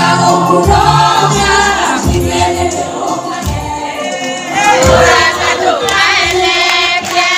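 Live gospel worship music: a woman leads the song into a microphone while the congregation sings along. The band's bass drops away about halfway through, leaving mostly voices.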